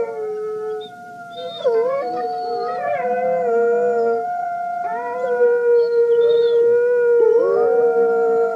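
A pack of canines howling in chorus: several long, overlapping howls held at different pitches, with wavering, sliding calls breaking in about two seconds in and again near the end.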